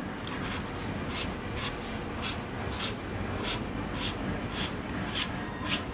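Bottom bracket cup being turned in by hand: short rubbing scrapes about twice a second as the fingers work it round.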